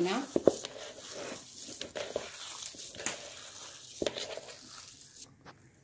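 A hand squeezing and kneading raw minced meat in a bowl, with soft irregular smacks and clicks, tailing off near the end.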